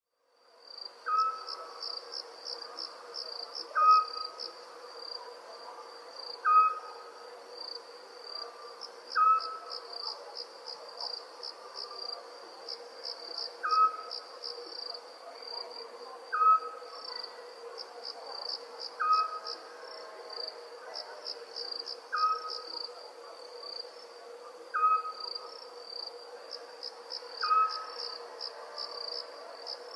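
Night chorus of crickets chirping in a steady, rapidly pulsing trill, with a short whistled call repeating about every two and a half seconds over it as the loudest sound.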